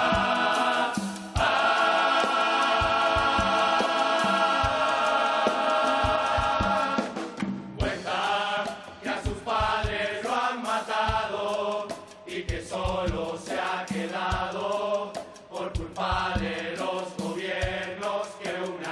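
Carnival murga chorus of men singing together, holding one long chord for several seconds, then going into a rhythmic sung passage over regular percussion beats.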